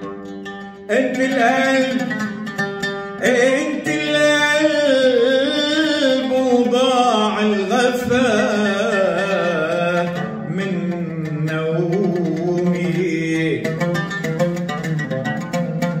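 A man singing an Arabic song in a wavering, ornamented melodic line, accompanying himself on a plucked oud. The oud comes in strongly about a second in and again a few seconds later.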